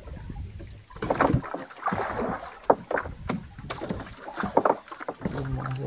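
Irregular knocks and clatter from things being handled aboard a small wooden fishing boat, with a low steady hum starting near the end.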